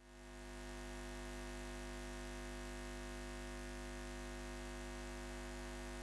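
Steady electrical hum, a neon-sign buzz sound effect, fading in over about the first second and then holding unchanged.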